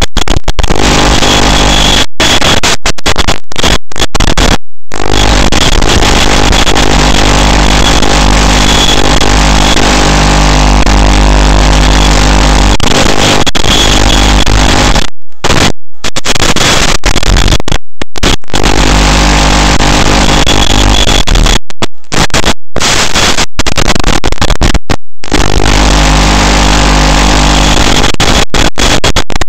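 Loud harsh static with steady hum tones under it, cutting out abruptly to silence many times for a split second. This is the noise of the analog FPV video link's audio channel as recorded by the goggle DVR, not sound heard at the aircraft.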